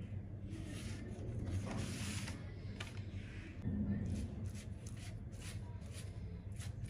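A silicone pastry brush spreading chopped herbs across the top of stacked flatbreads, a quick series of soft scrapes about three a second in the second half. Before that, a papery rustle as the soft flatbreads are handled.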